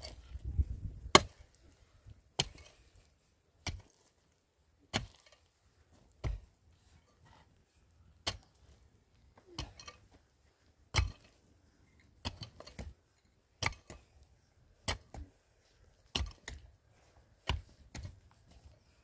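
Wood being chopped: sharp single strikes about once every second or so, now and then two in quick succession.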